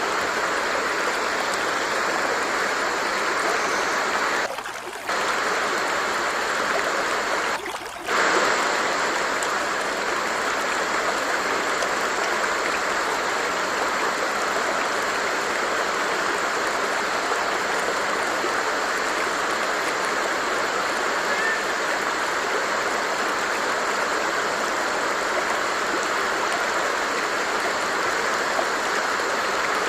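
Stream water flowing steadily, with two brief dips in level about 4.5 and 7.5 seconds in.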